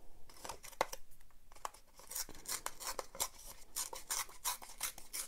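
Scrapbook paper being torn by hand to give a ripped edge: a run of small, irregular crackles.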